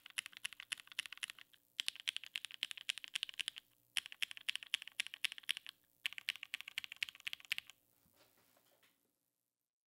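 Fast typing on a Keycult No.2/65 mechanical keyboard with Opblack switches on 63.5 g springs, an aluminium half plate in a gasket mount, and GMK keycaps: four quick runs of keystrokes with short pauses between, then a few faint clicks near the end.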